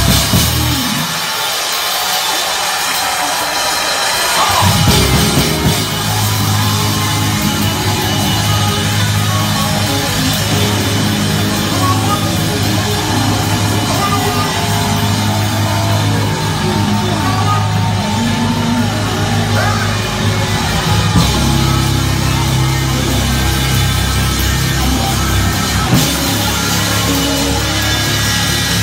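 Live gospel band playing in church: Hammond-style organ, drum kit, bass guitar and electric guitar, with the bass line coming in about five seconds in.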